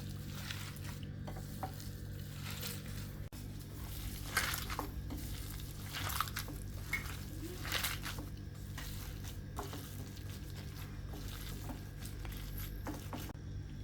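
Kitchen utensil and dish handling: irregular scraping, swishing and light clatter, busiest in the middle, over a steady low hum.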